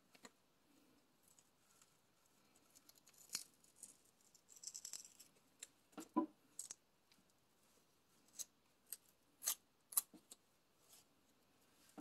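Masking tape being peeled off a painted paper page: soft, scattered crackles and ticks, with a short crackling stretch about five seconds in and several sharper clicks in the second half.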